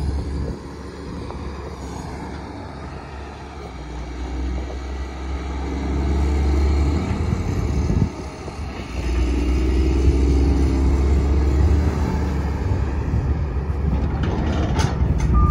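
Cummins diesel engine of a LiuGong CLG925LL long-reach excavator running, a deep rumble that swells over several seconds, dips briefly about eight seconds in, then holds steady. A few sharp clicks come near the end.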